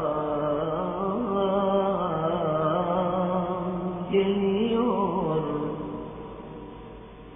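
Solo male voice singing a na't, an Ottoman Turkish religious hymn, drawing out one long wavering, ornamented note at the end of a line. The note fades away about six seconds in, leaving faint hiss.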